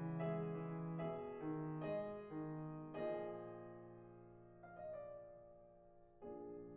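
Background piano music: a slow run of single notes and chords, then one chord held and fading from about three seconds in, and a new chord struck near the end.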